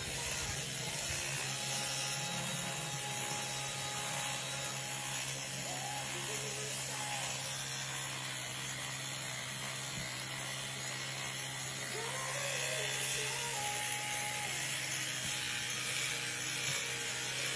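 Small handheld electric grooming tool running with a steady motor buzz and hiss.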